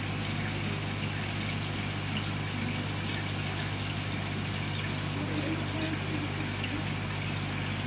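Aquarium filter pump running steadily, a constant low hum under an even hiss of moving water.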